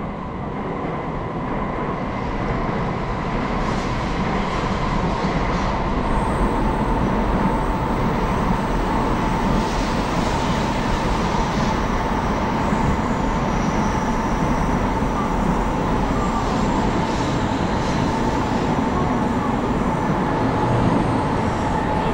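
Trains running on the tracks beside the station: a steady rumble that grows louder over the first few seconds and then holds, with a high, steady tone running through it.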